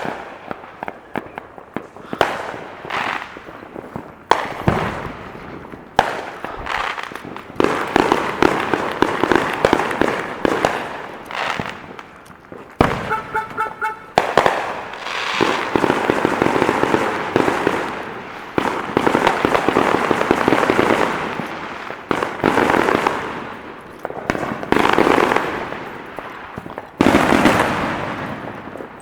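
Fireworks and firecrackers going off on all sides: sharp bangs and long stretches of dense crackling, with the hardest bangs near the start, about halfway and near the end. About halfway through, a brief run of rapid, evenly spaced beeps.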